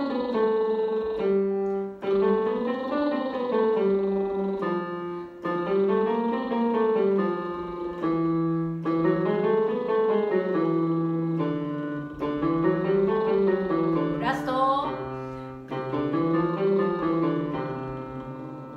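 Electronic keyboard playing a vocal warm-up pattern in the male key: a run of notes up and back down, repeated about every three seconds and moving a step lower each time.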